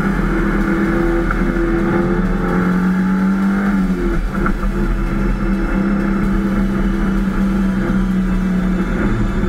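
Subaru Impreza rally car's flat-four engine heard from inside the stripped cabin, running at fairly steady revs, its note shifting up and down a few times.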